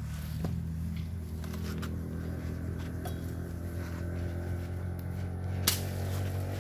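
A blade chops into firewood with one sharp, loud strike near the end, after a few lighter knocks, over a steady low motor hum.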